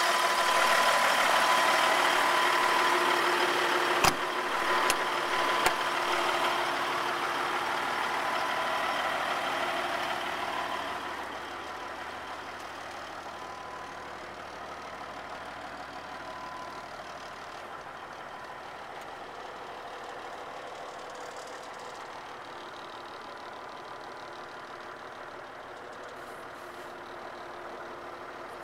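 Caterpillar 3406B diesel in a semi truck idling steadily. About 11 seconds in it becomes quieter and more muffled as heard from inside the cab. A few sharp clicks or knocks come around four to six seconds in.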